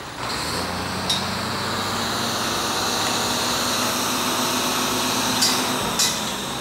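An engine running steadily with a low hum, with three sharp knocks, one about a second in and two close together near the end.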